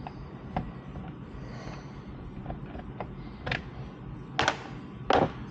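Hand tool with a tiny Torx (star) bit working small screws out of the underside of a car's front end: scattered light clicks and scrapes, then two louder, longer scraping rasps near the end.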